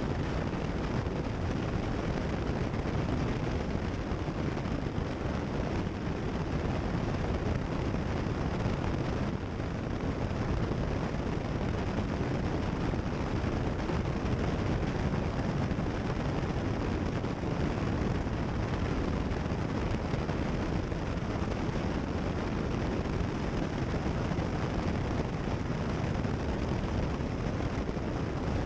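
Cessna 172 Skyhawk's piston engine and propeller droning steadily in cruise flight, heard as a constant noise inside the cockpit through the headset audio.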